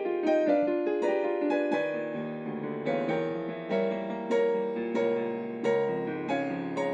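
Yamaha digital piano being played: an improvised piece of sustained chords under a melody, with the notes struck at an even pulse about every half second.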